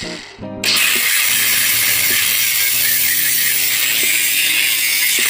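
Ryobi angle grinder with a masonry cutting blade running against a brick, a loud steady high-pitched hiss that starts suddenly just under a second in. The blade is too shallow to cut all the way through the brick.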